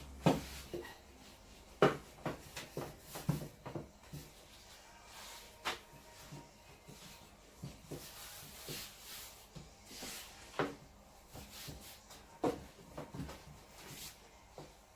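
Fresh egg pasta dough being kneaded by hand on a wooden board: irregular soft knocks and thumps as the dough is pushed down and out, stretched and flipped, a few of them louder.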